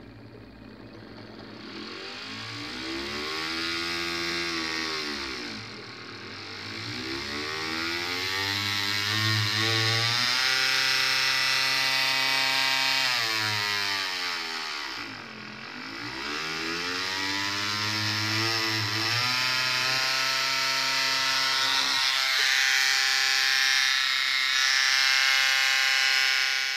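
Small electric motor of a variable-speed mini grinder whining as its speed is turned up and down on the control box knob. The pitch climbs, dips, climbs again, falls almost to a stop midway, then rises and holds at high speed near the end.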